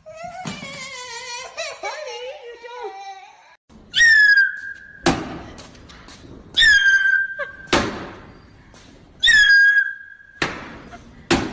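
A whistle blown in three loud blasts about two and a half seconds apart, each dipping slightly in pitch and then held for about a second. Sharp thumps fall between the blasts. A wavering pitched sound fills the first few seconds before the first blast.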